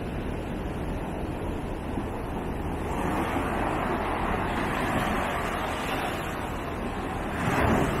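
Ocean surf breaking on a beach: a steady wash that builds from about three seconds in, with a wave crashing loudest near the end, over a low rumble of wind on the microphone.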